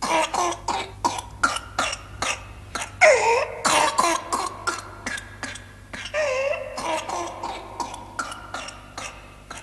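A child coughing in rapid fits of short, sharp coughs. About 3 s and 6 s in come long, pitched gasps that dip and then rise: the whooping intake of breath that marks whooping cough (pertussis).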